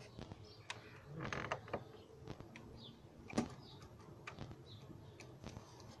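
Wooden bird-feeder pole creaking and knocking as it swings on its pivot. There is a longer creak about a second in, and a sharp knock, the loudest sound, a little past halfway. Birds chirp faintly.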